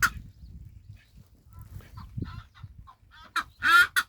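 A fowl-like game bird calling: scattered soft clucks, then a loud, harsh call made of two quick parts a little before four seconds in.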